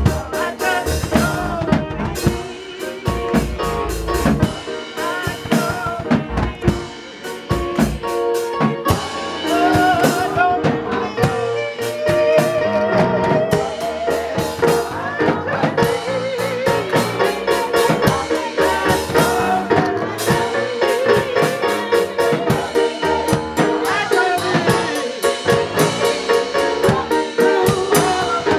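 Gospel choir singing with live drum kit and keyboard accompaniment, the drums playing busy strokes throughout and the voices singing with wavering vibrato.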